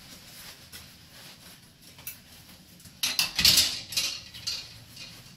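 Stiff jacquard gown fabric rustling as the dress is handled and held up, with a louder burst of rustling and a few knocks about three seconds in.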